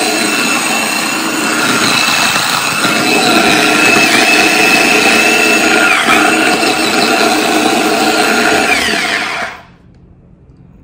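Small electric food chopper running, its blade chopping red bell pepper and celery very fine, with a steady motor whine whose pitch dips briefly twice. The motor cuts off suddenly about nine and a half seconds in.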